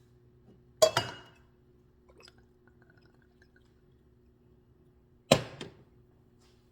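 Two sharp clanks of kitchen cookware being handled, one about a second in and another about five seconds in, each ringing briefly, over a faint steady hum.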